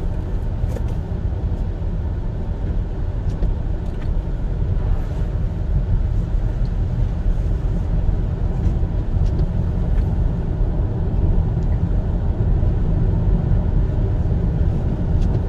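Steady low rumble of a car driving on a wet road, heard from inside the cabin: engine and tyre noise, with a few faint scattered ticks.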